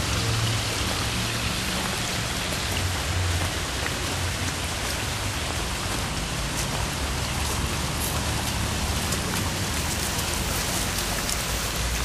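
Water from a pondless waterfall falling and splashing steadily, an even rain-like patter with no pauses, and a few sharper ticks in the last few seconds.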